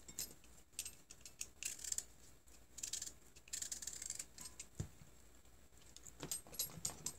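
Peeler scraping strips of zest off a lemon: a series of short rasping strokes. A soft knock about five seconds in, then a few light clicks near the end.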